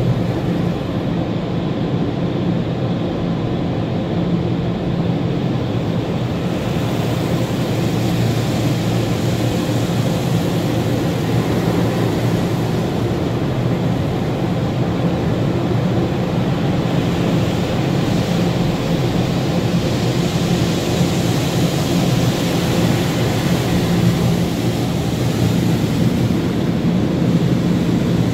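Automatic car wash heard from inside the car's cabin: water spray pouring steadily over the windshield, roof and windows as a continuous rushing noise, with a low steady hum underneath. The spray grows brighter and hissier in the last third as the car passes through the rinse.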